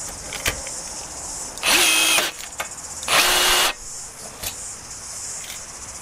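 Bosch 18V cordless rivet tool's motor running in two short bursts about a second apart as it pulls and sets a blind rivet through thin sheet tin, with light clicks from the tool before and after.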